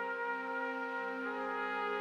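Background music: slow trumpet-led jazz, with long held notes over sustained chords that change every second or so.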